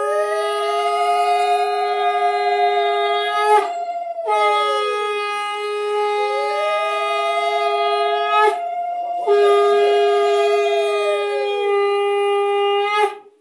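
Conch shell (shankha) blown for a puja in three long blasts with short breaks for breath. Each blast holds a steady note, while a second tone swells up and falls back into it. The last blast cuts off sharply near the end.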